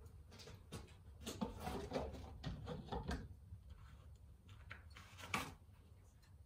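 Scattered knocks, clatter and rustling, loudest in a sharp knock about five seconds in.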